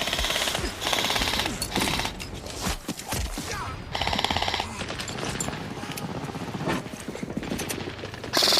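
Airsoft electric guns (AEGs) firing full-auto. There are three short bursts of rapid clicking, at the start, about a second in and about four seconds in, with fainter scattered shots in between.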